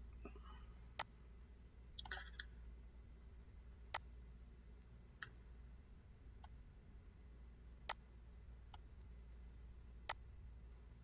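Computer mouse clicking: single sharp clicks a few seconds apart, four clearer ones and some fainter ones, over a faint low hum.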